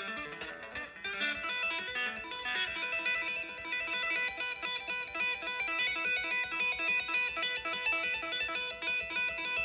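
Electric guitar played by two-handed tapping on the fretboard: a fast stream of short notes over held, ringing tones.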